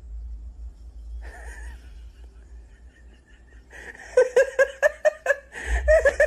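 A person laughing in quick, repeated ha-ha pulses, in two runs in the second half, after a short breathy sound about a second in.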